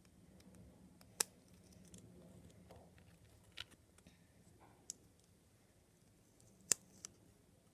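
Small plastic Lego pieces clicking and tapping as they are handled over a baseplate: about five sharp clicks, the loudest about a second in and near the end.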